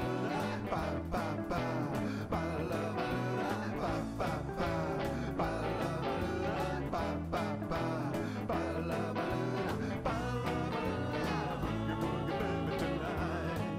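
Background music: a guitar-led song with a steady beat.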